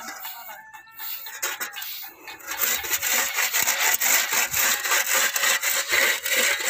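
Rapid, loud scraping strokes of a hand tool brushing or scraping along concrete. The strokes start about two and a half seconds in and go on steadily: a slab joint being cleaned out before it is sealed.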